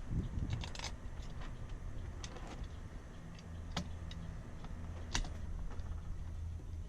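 Metal parts clicking and knocking as a transom clamp bracket is worked onto a small outboard motor, a tight fit, with a few sharp clicks standing out. A low steady hum underneath, stronger from about halfway through.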